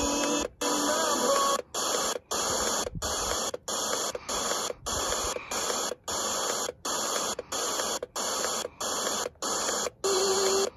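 FM radio static from a Börne portable radio's speaker as it is tuned up the band between stations, an even hiss that drops out briefly about every two-thirds of a second as the tuning steps from frequency to frequency.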